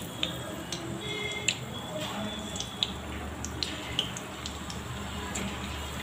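Hot oil sizzling in a kadai with scattered pops and crackles as lumps of sago pakoda batter deep-fry and fresh lumps are dropped in.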